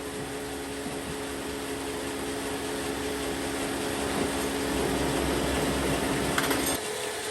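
Workshop machinery running with a steady hum of several held tones, slowly growing louder, then changing abruptly near the end to a different, higher hum.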